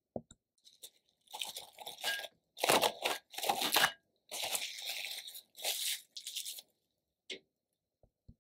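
Plastic cling film crinkling and tearing as it is stretched over a glass bowl, in a run of short rustling bursts lasting about five seconds, followed by a couple of faint ticks near the end.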